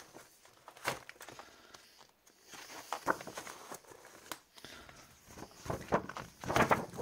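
Paper pages of a disc-bound planner being turned and handled by hand: irregular rustles and flicks, the loudest near the end.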